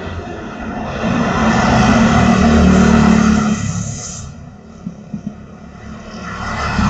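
A road vehicle passing close by, its noise swelling to a peak two to three seconds in and fading away, with a second vehicle approaching near the end.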